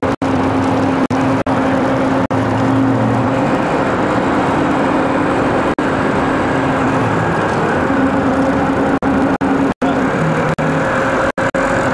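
Boat engine running steadily, a constant hum under a broad rushing noise, with the sound cutting out for an instant several times.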